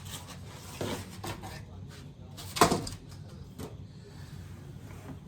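Scattered knocks and clatter from things being handled and set down, with one sharp, much louder knock about halfway through.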